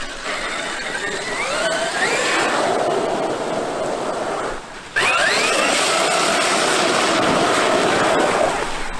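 Traxxas X-Maxx RC monster truck driving hard: the brushless electric motor whines and rises in pitch as it accelerates, over a steady rush of tyre and ground noise. Just before halfway the throttle is let off briefly. It then comes back on sharply, the whine climbs quickly and holds.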